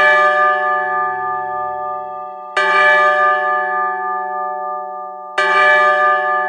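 A large bell struck three times, about two and a half seconds apart, each stroke ringing on and fading before the next.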